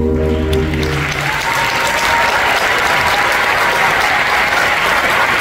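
Theatre audience applauding at the end of a song, swelling in as the last held chord of the accompaniment dies away about a second in.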